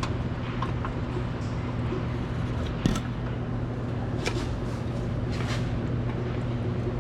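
Tools scraping and clinking at an over-tightened oil filter that won't come loose, with one sharp metal knock about three seconds in, over a steady low hum.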